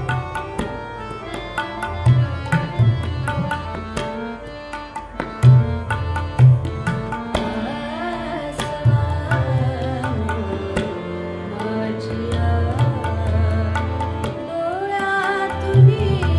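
Marathi ghazal played on harmoniums with tabla strokes and deep drum thumps. A woman's voice sings with gliding ornaments from about halfway through.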